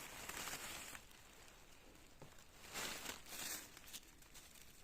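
Faint rustling and crackling as clusters of stump honey fungus are handled and cut, in a couple of short noisy bouts.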